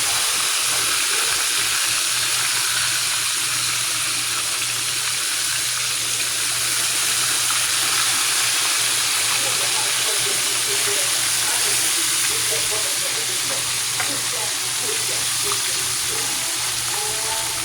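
Floured pork steaks frying in hot oil in a skillet: a steady, dense sizzle, with a low hum underneath.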